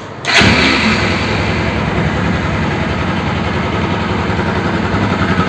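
Bajaj Pulsar NS200's single-cylinder engine starting up about a third of a second in and settling into a steady, evenly pulsing idle. It runs smoothly, without the tappet ticking it had before its valve guides and valves were renewed.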